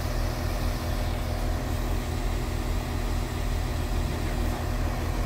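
Northern Ireland Railways Class 4000 diesel multiple unit moving slowly along the platform, its underfloor diesel engines running with a steady low drone.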